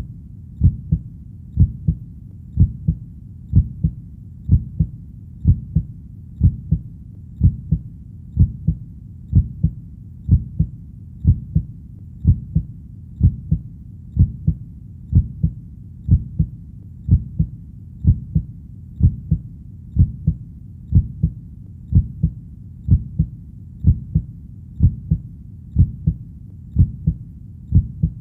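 Heartbeat in a slow, steady rhythm of about one beat a second, each beat a low double thump (lub-dub), over a faint steady low rumble.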